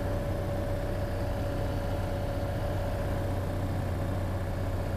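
Cessna 182's piston engine and propeller droning steadily, heard inside the cabin: an even low drone with a constant higher hum over it.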